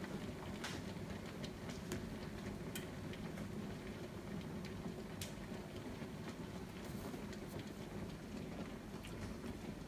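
Steady low rumble of a large pot of water heating for a seafood boil, with a few scattered light clicks.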